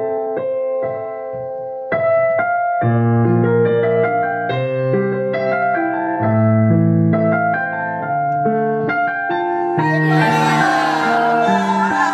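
Background piano music: a light melody of separate notes, joined by a lower bass line about three seconds in. Near the end a group of children's voices cheers over the music.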